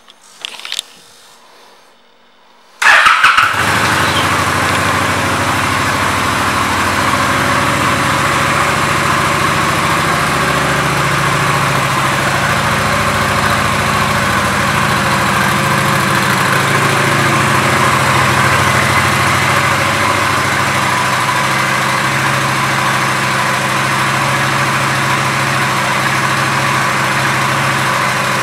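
2015 Honda Shadow Phantom 750's V-twin engine starting about three seconds in and then idling steadily.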